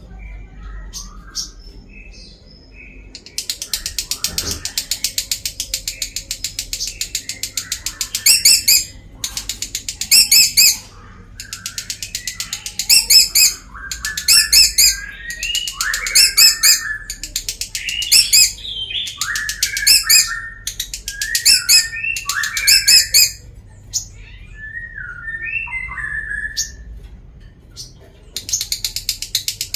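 Lovebird singing a long ngekek: a fast, ratchet-like chatter, with loud shrill notes about every two seconds. It breaks off for a few seconds near the end, with a few softer calls, then starts again.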